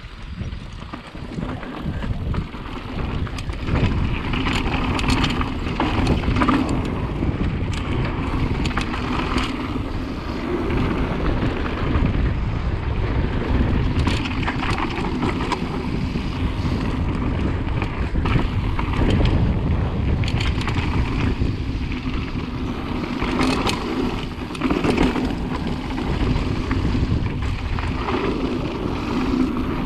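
Mountain bike ridden fast down a dirt trail: wind rushing over the camera microphone, tyres rolling over dirt and stones, and the bike knocking and rattling over bumps. Quiet at the start, it grows loud within the first few seconds as the bike picks up speed.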